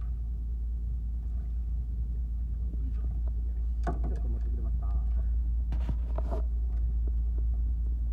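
Steady low rumble of a fishing boat's engine running at idle, with a few sharp knocks and rattles about four seconds in and again around six seconds in as a fish and its tackle are swung aboard.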